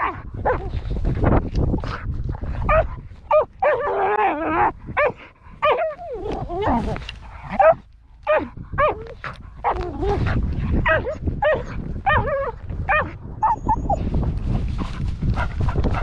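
A dog barking and yelping over and over in short, high calls, some drawn out into whines that rise and fall, over a low rumble on the microphone.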